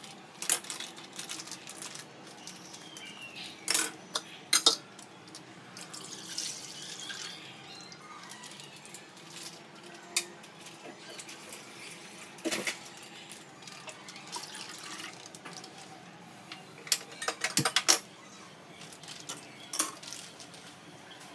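Kitchen handling sounds: a steel pot clinking and knocking on the counter and stove, with a short stretch of liquid being poured into it. Near the end comes a quick run of clicks as the gas burner is lit.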